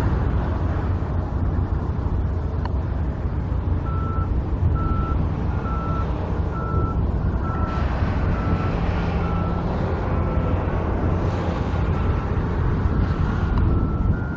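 Wheel loader's engine running, with its reversing alarm beeping about once a second from about four seconds in.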